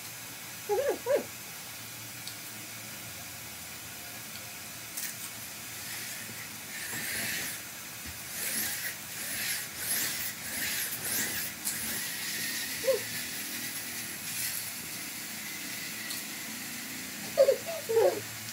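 People eating gupchup (pani puri): crisp puri shells crunching and the spiced water being slurped, busiest through the middle, with brief pitched vocal sounds near the start, once around the middle and in a quick cluster near the end.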